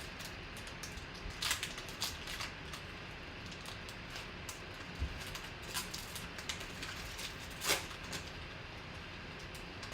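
Scattered rustles and clicks of a sealed card box and its packaging being handled and opened, with two sharper crinkles about a second and a half in and near the end, over a faint steady hiss.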